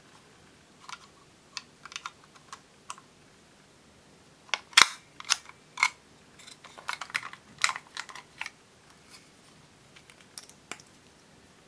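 Irregular clicks and clacks of hard plastic as a toy cash register's buttons and drawer are worked and a plastic eyeshadow compact is handled. The loudest clicks come in a cluster about five seconds in.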